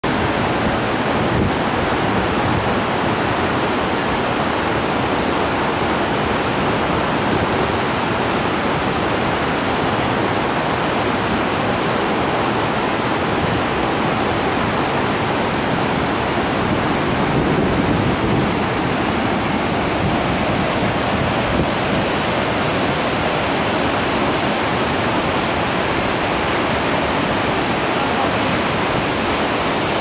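Waterfall and rocky cascades rushing steadily: a constant, dense noise of falling water.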